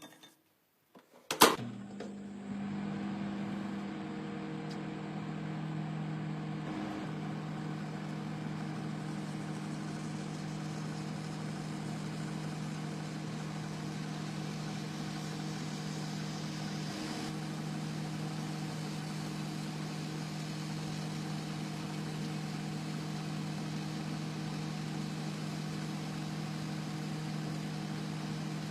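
Microwave oven starting with a click about a second in, then running with a steady hum.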